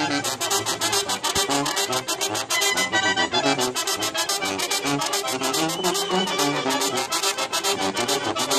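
Festive brass-band music, trumpets and trombones playing a lively tune over a fast, steady beat.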